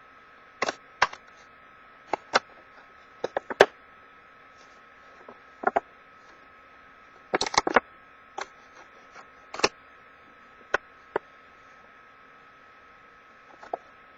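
Scissors snipping through an empty box: an irregular series of sharp snips and clicks, over a steady faint hum.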